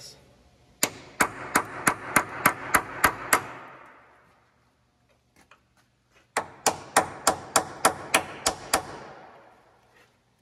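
Hammer striking a steel punch held against the rusted eccentric camber bolt on a Toyota Tundra's lower control arm mount. The blows are sharp and ringing, metal on metal, about three a second, in two runs of about nine strikes with a pause of a couple of seconds between them.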